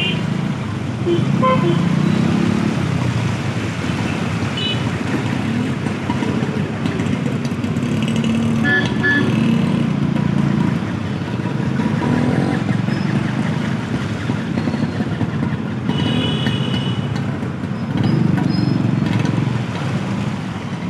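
Road traffic driving through a flooded street, with motorcycle and auto-rickshaw engines running through the water. Several short horn toots sound over it, the longest about 16 seconds in.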